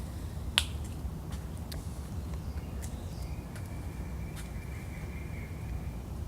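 One sharp click about half a second in, followed by a few fainter ticks, over a steady low outdoor rumble; a faint, steady high-pitched tone runs through the second half.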